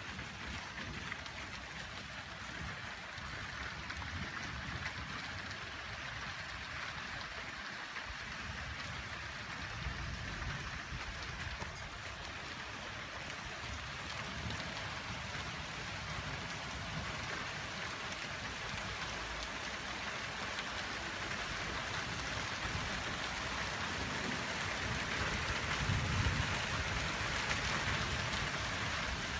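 Steady rain falling in a thunderstorm, growing a little louder toward the end, with low rumbles of distant thunder about ten seconds in and again near the end.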